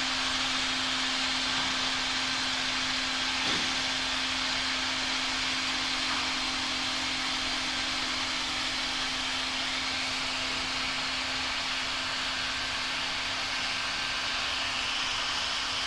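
Hot-air banner welding machine running steadily as it welds PVC tarpaulin: a constant blower hiss over a steady motor hum.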